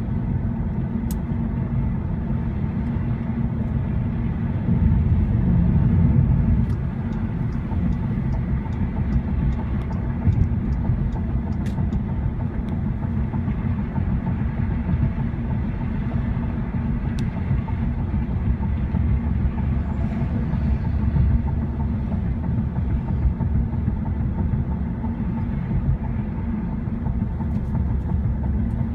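Road noise inside a moving car's cabin: a steady low rumble of tyres and engine, swelling briefly about five seconds in.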